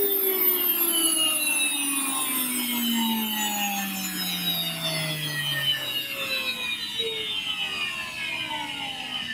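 WonderMill electric grain mill switched off and spinning down: the motor's whine falls steadily in pitch over several seconds, slowly getting quieter and still coasting at the end.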